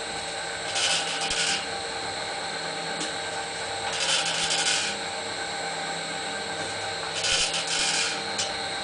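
A homemade rotational casting machine turns its welded steel frame on a worm gearbox's output shaft, with a steady motor and gearbox hum. Every three seconds or so a rasping squeak lasting under a second comes from the bearings, which the builder puts down to slight misalignment in its self-aligning bearings, as the frame has no second support.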